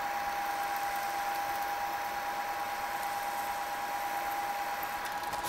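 Spindle of a 2001 Southwestern Industries Trak K3 vertical milling machine running with a steady whine while the tool is brought down into the workpiece for a programmed bolt hole.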